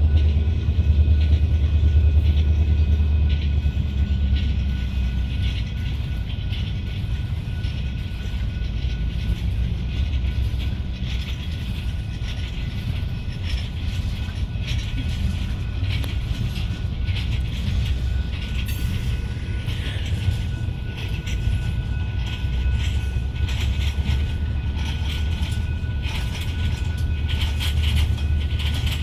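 Double-stack container train rolling past: a steady low rumble of the well cars with fast clicking and rattling from the wheels and running gear, and a faint steady high whine. The rumble is heaviest at the start and again near the end.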